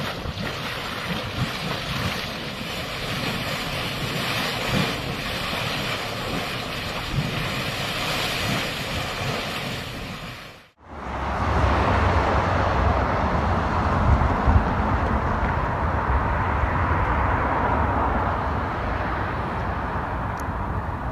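Steady rushing noise with no clear pitch. It cuts off abruptly about ten seconds in, then comes back louder and deeper.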